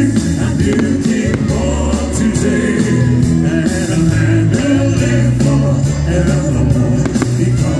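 Loud music with a heavy bass line and steadily changing low notes.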